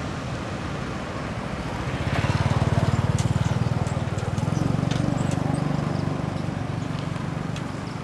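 A motor vehicle passing on the road: a low engine rumble that swells about two seconds in and slowly fades near the end.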